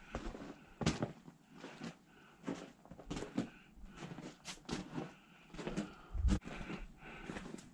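Footsteps walking through a few inches of fresh snow: a run of uneven short steps, with one heavier low thump about six seconds in.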